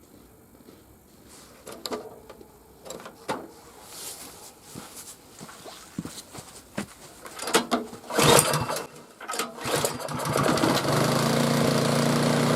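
Knocks and rattles as a small engine with a pull-cord recoil starter is handled and pulled, then the engine catches about ten and a half seconds in and runs steadily: the repaired starter cord works.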